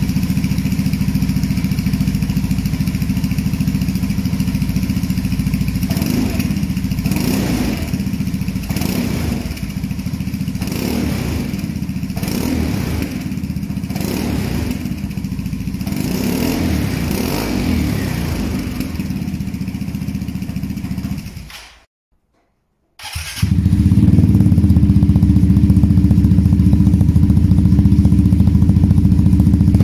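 Vespa GTS 300's single-cylinder four-stroke engine running through a Polini Racing exhaust: idling, then blipped about seven times in quick revs with the dB killer fitted. After a brief break it idles again, louder and deeper, with the dB killer removed from the silencer.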